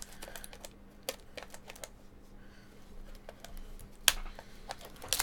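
Light, irregular clicking and tapping, with one sharper click about four seconds in, over a faint steady hum.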